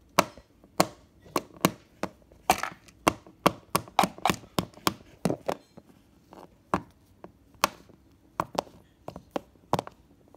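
Toy animal figures knocked and tapped on a wooden surface: a run of irregular sharp taps, busiest in the first half and sparser later.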